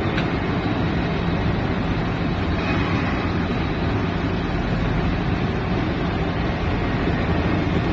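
Steady rumble of heavy port machinery running: the portal crane slewing its empty grab and a truck's engine below the hopper. A constant low hum runs under even noise throughout.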